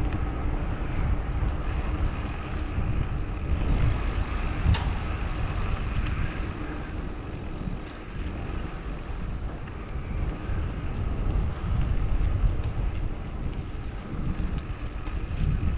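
Wind rushing over a GoPro's microphone while riding a bicycle along a paved road: a steady low rumble.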